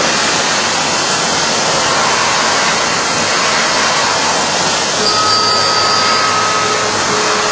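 CNC machine running while machining a workpiece: a loud, steady rushing hiss, with a faint steady whine coming in about five seconds in.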